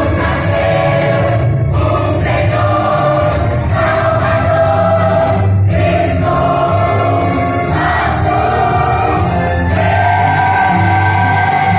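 Choir singing a Christmas cantata over instrumental accompaniment, in phrases of held notes about two seconds each, the last note held long near the end.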